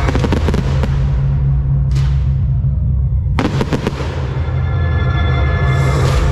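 Fireworks bursting and crackling over loud music with a heavy, steady bass: a rapid run of bangs at the start, a single bang about two seconds in, and another rapid volley about three and a half seconds in.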